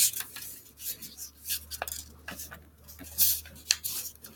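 A sheet of printer paper being folded: crisp rustles and short scraping strokes as the edge is brought over onto a crease and pressed flat.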